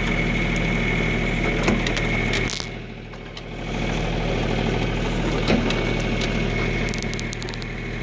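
John Deere compact tractor's diesel engine running steadily while it powers a backhoe digging and dumping soil. A steady high whine sits over the engine hum, and the engine sound dips briefly about two and a half seconds in before picking back up.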